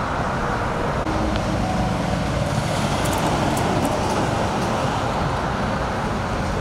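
Steady freeway traffic noise: a constant wash of passing vehicles and engine noise.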